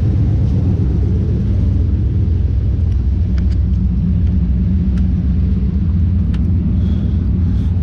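Truck engine running steadily at idle, a constant low rumble with a few faint clicks over it.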